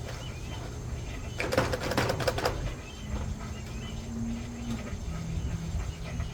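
GE top-load washing machine running with a steady motor hum, a burst of rattling clicks about a second and a half in, and a steady tone that drops in pitch about five seconds in. Birds chirp faintly in the background.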